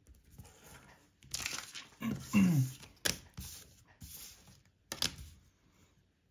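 A plastic protractor is handled, set down and slid over a sheet of paper on a table: paper rustling with a few sharp clicks and taps. A brief wordless vocal sound falls in pitch about two seconds in and is the loudest moment.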